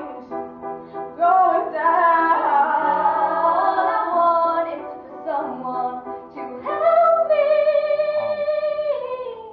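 Teenage girls singing a song, ending on a long held note with vibrato that fades out.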